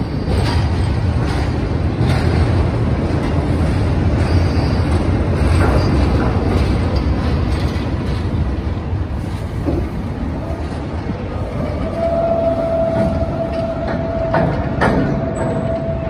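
Heavy cargo-handling machinery in a ship's hold during discharge of iron ore: a continuous low mechanical rumble with scattered metallic knocks. About three-quarters of the way through, a steady high whine joins in and holds.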